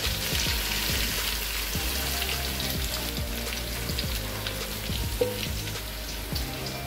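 Hot frying oil sizzling as it is scraped from a frying pan into a pot of yogurt-and-cream gravy, with faint scrapes and taps of the spatula.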